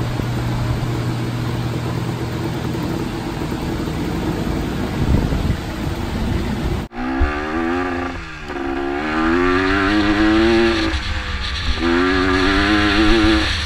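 Honda 250 three-wheeler's engine running steadily, then, after a cut about seven seconds in, revving up through the gears while riding: the pitch climbs, drops at a shift, and climbs again twice.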